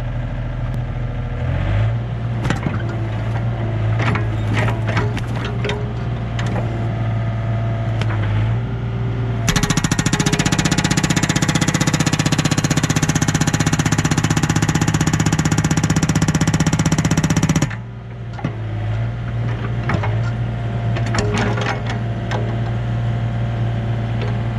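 Yanmar B37 mini excavator's diesel engine running, with a few knocks as the boom is positioned, then its hydraulic hammer pounding rapidly into a tree stump for about eight seconds, starting a little over a third of the way in and stopping abruptly. The hammer is being used to try to split the stump, and the engine runs on after it stops.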